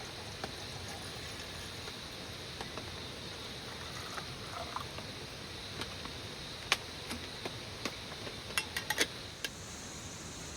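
Steady hiss of rain falling in the forest, with scattered sharp taps: one loud tap partway through and a quick run of several near the end.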